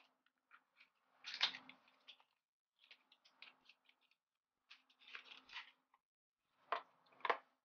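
Faint handling of an eyeshadow palette and its cardboard box: scattered rustles and light clicks in a few short clusters, ending with two sharper clicks.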